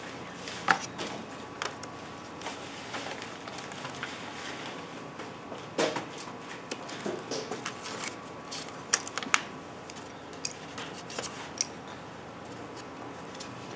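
Pastel sticks being handled and sorted while colors are picked out: irregular light clicks and clinks of small hard sticks against each other and their box, a few sharper ones now and then, over a low steady room background.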